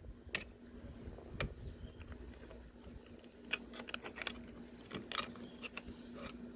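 Plastic interior door trim being worked loose by hand: scattered clicks and light knocks at uneven intervals, with a quick run of clicks about halfway through.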